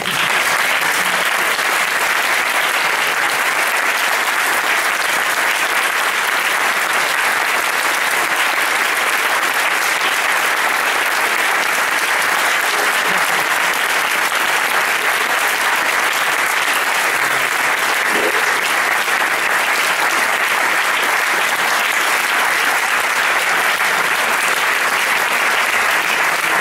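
Audience applauding: a long, steady round of clapping from a large crowd that breaks out suddenly at full strength.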